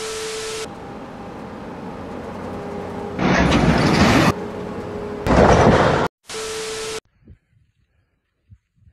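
Brief TV-static hiss with a steady tone, an editing transition, at the start and again about six and a half seconds in. Between them come two loud, noisy rushes of about a second each, and at the end near silence with faint ticks.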